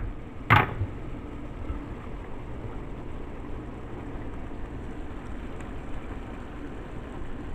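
Shrimp in a cheesy white-wine reduction simmering in a skillet, giving a steady soft sizzle. A single brief knock comes about half a second in.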